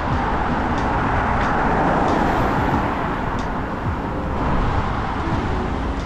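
Steady road traffic noise, an even rush, swelling a little about two seconds in as a vehicle passes.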